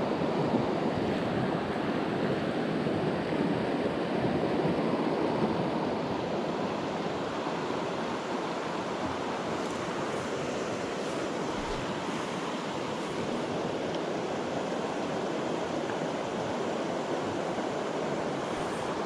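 Small mountain creek running high with spring runoff, rushing water as a steady, even noise. It is a little louder in the first few seconds.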